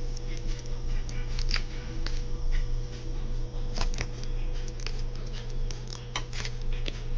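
Leftover brisket being cut into thinner pieces: a blade makes irregular quick clicks and taps, several a second.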